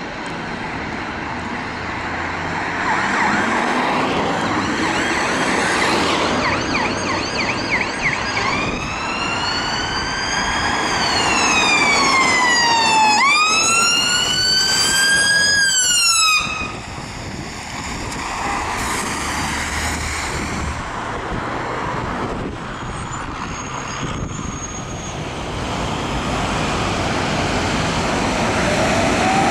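Fire engine's electronic siren: a short run of rapid yelps, then slow wailing sweeps that fall and rise in pitch before stopping suddenly, over road-traffic noise.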